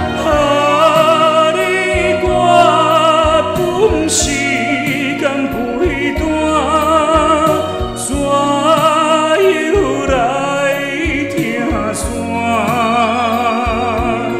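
Music: a slow Hokkien (Minnan) ballad, with a man singing a wavering, vibrato-laden melody over an instrumental backing track.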